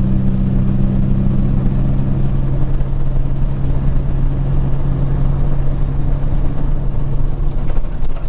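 Peterbilt 379's diesel engine and road noise as a steady drone at highway cruise, a strong low hum; one of its tones fades about two and a half seconds in.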